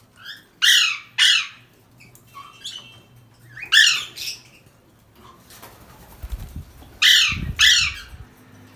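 Parrot giving harsh squawks in three pairs, each call sweeping down in pitch. A low flutter runs under the last pair.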